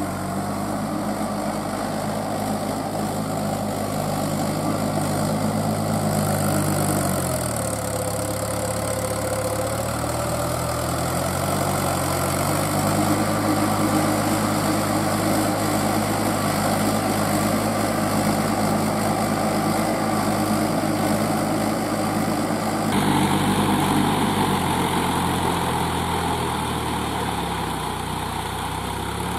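Mahindra 475 DI tractor's diesel engine running steadily under load as it drags its cage wheels through paddy-field mud. The engine note dips about a quarter of the way in and picks back up a few seconds later, and the sound changes abruptly about three quarters of the way through.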